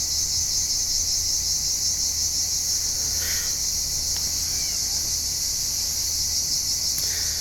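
Dense, steady chorus of insects shrilling, with a few faint short chirps about three seconds in and again near the end.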